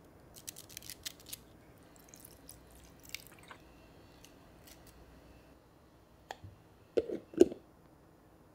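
Raw cabbage leaves crackling crisply as they are pulled apart and handled, then two knocks near the end as the plastic lid is set onto a plastic microwave steamer bowl.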